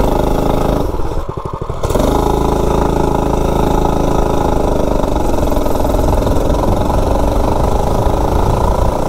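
Mini bike's single-cylinder Predator 212-based four-stroke engine, governor removed, at a low idle for a moment, then opened to full throttle about two seconds in, running loud and hard as the bike accelerates from a standstill.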